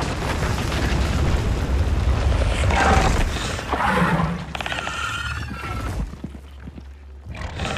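Movie sound effects of a giant monster attack: a deep, loud rumble with crashing and splintering. High screeching creature cries come a few seconds in, and the rumble dies down near the end.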